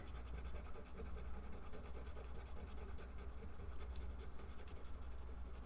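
Faint rustling and scratching of a paper card and packaging being handled, over a low steady hum.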